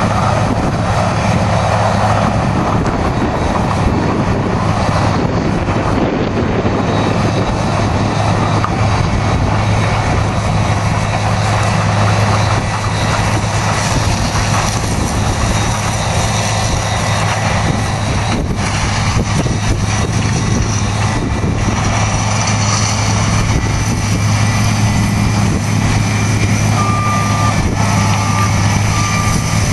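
Heavy farm machinery's diesel engine running steadily under load with a constant low drone. Near the end a warning beeper starts, sounding a short beep over and over.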